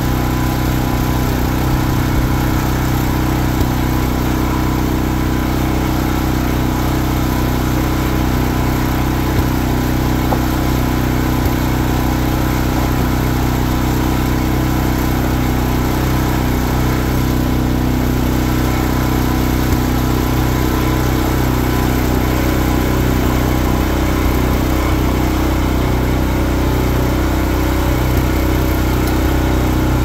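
An engine idling steadily with no change in speed, with a few light knocks over it.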